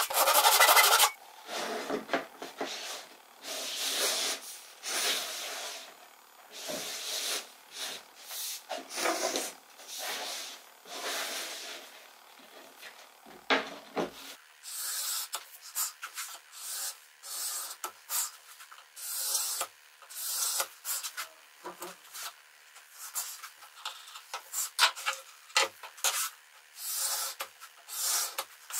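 A hand saw finishes a cut in the first second, then wood rubs and scrapes in short irregular strokes as the table saw crosscut sled is slid back and forth on its wooden runners across the saw table.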